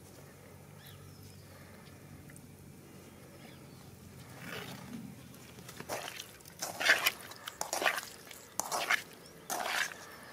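A hand working raw chicken pieces in a steel pan: short squishing, rustling strokes about once a second, starting around four seconds in, with only faint background before.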